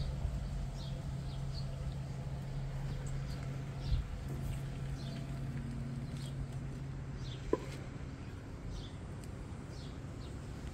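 Small bird chirping outdoors, short high downward chirps repeating every half second to a second, over a steady low hum. A dull knock comes about four seconds in and a brief sharp click about seven and a half seconds in.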